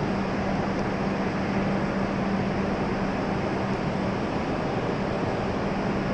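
E7 series Shinkansen train humming steadily: an even rushing noise with a steady low tone.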